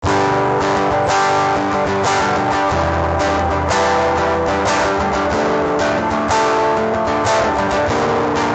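Background music led by plucked guitar, with a steady rhythm of picked notes.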